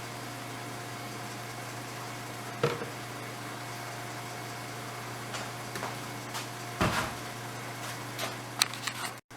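A few short knocks and clatters of hard parts and containers being handled while oil is added to the engine's oil filter housing, the sharpest about two and a half seconds in and near the end. A steady background hum runs underneath.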